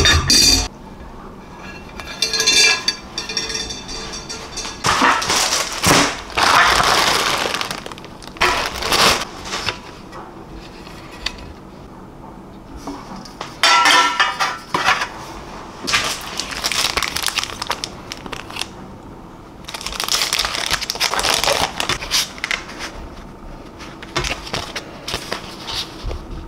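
Unboxing kitchenware: plastic packaging and bubble wrap crinkling and rustling in irregular bursts, with light clinks of a metal wire rack in a ceramic dish and a stainless steel pan being handled.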